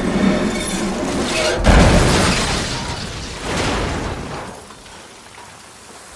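A sedan crashing as it rolls over and lands: heavy metal impacts with glass shattering, the loudest crash about two seconds in and another a couple of seconds later, then the noise dying down to a hiss of scraping and settling debris.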